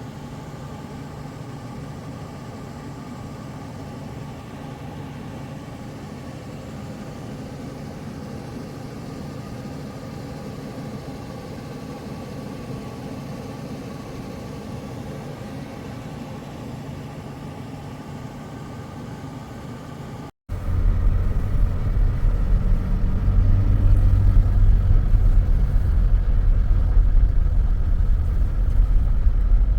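A steady engine hum. After a brief cut about 20 seconds in, a much louder, deep rumble takes over.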